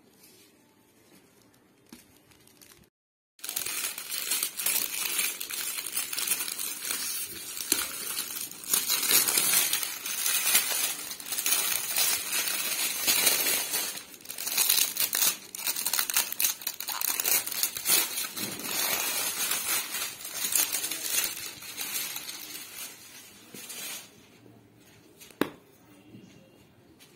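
Shiny metallic foil gift wrap crinkling and tearing as it is pulled off a box, dense and continuous for about twenty seconds, then fading, with a single sharp click near the end.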